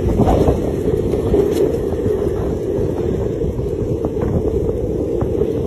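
Steady low rumble of rolling over asphalt while being towed along by a dog on a leash, with wind buffeting the microphone.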